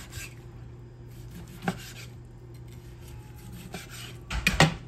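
Chef's knife sawing through a grilled strip steak with a charred crust, with a knock of the blade on the cutting board about two seconds in and a quick cluster of louder knocks near the end.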